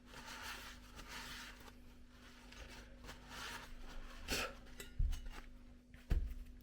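Soft rubbing and handling noises from a steel car body part being moved about, with a few short dull knocks, the loudest about five and six seconds in.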